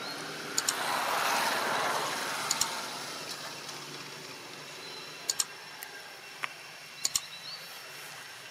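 A rushing noise swells and fades over the first few seconds against a steady outdoor background. Four sharp double clicks, like mouse clicks, come from the like-and-subscribe button animation.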